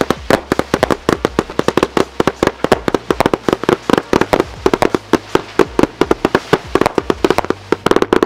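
Wavelength 148-shot compound cake (two 74-shot barrage finales) firing: a rapid, unbroken string of shots, several a second, each a sharp pop.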